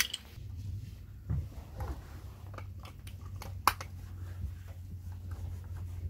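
Handling noise: rustles, knocks and small clicks of a phone camera being moved and set down and of someone sitting onto a cushioned bench, with one sharp click about three and a half seconds in, over a steady low hum.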